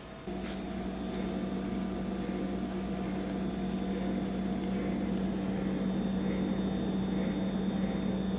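Refrigerator running with a steady low hum that comes on suddenly just after the start, a sound that sounds like a frog in the refrigerator.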